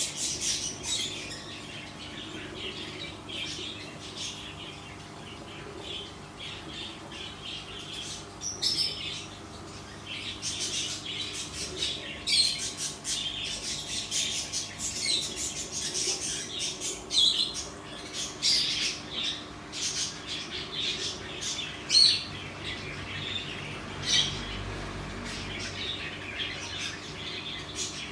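Small birds chirping and squawking in quick, irregular calls, a few of them louder and sharper, over a steady low hum.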